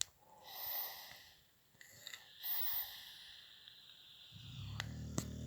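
Fairly faint breathing: two long breathy hisses in the first three seconds, then a low, pitched, hum-like breath with a couple of clicks near the end.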